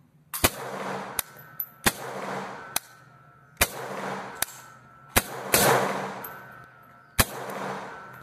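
AK-47 rifle (7.62×39 mm) firing single shots at a slow, uneven pace, each sharp crack followed by a long echo. Several fainter cracks fall between the loud ones.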